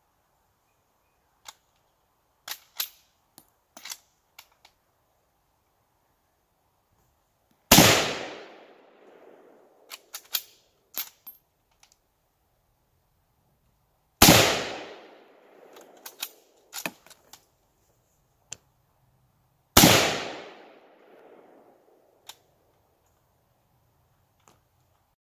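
Three handgun shots, roughly six seconds apart, each with a long echo trailing away for a second or two. Quieter clicks and knocks fall between the shots.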